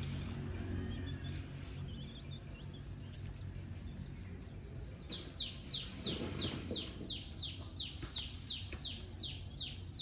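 A bird chirping: a quick run of high chirps, each falling in pitch, about three a second, beginning about halfway through, over a low steady outdoor hum.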